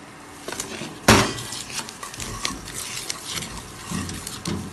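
Metal spoon striking and scraping a stainless-steel bowl while rice flour is mixed with hot water: one loud clank about a second in, then repeated light clinks and scrapes.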